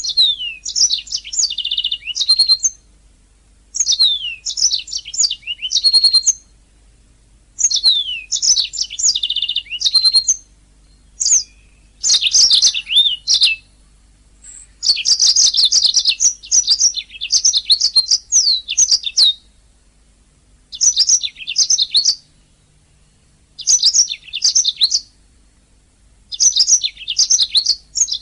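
Domestic canary singing: rapid, high twittering trills and chirps in phrases of about one to four seconds, separated by short pauses.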